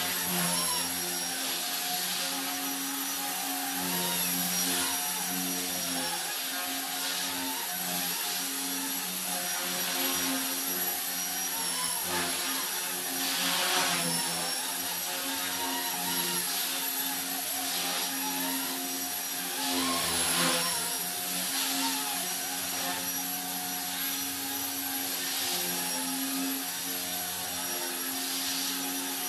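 Blade mCP X BL brushless micro collective-pitch RC helicopter in flight: a steady high-pitched motor whine and rotor buzz, its pitch wavering as the throttle and pitch change, with a few brief louder swells as it manoeuvres.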